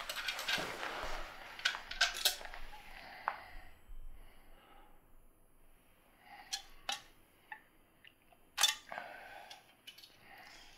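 Small clicks and ticks of something being handled, a few at a time and irregularly spaced, with a light rustle in the first couple of seconds.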